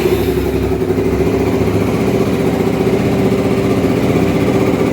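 Honda Twister 250's single-cylinder four-stroke engine idling steadily, just after a first start following a top-end rebuild to fix a loose camshaft.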